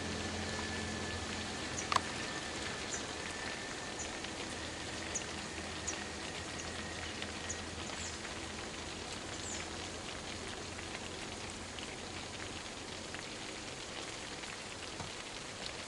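Steady rain falling on a surface, with many small drop ticks and one sharper tick about two seconds in.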